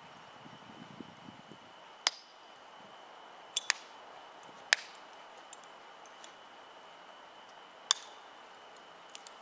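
Cast iron skillet and thermite slag ticking and pinging as they cool after a thermite burn-through: about six sharp, separate cracks scattered over a faint steady hiss.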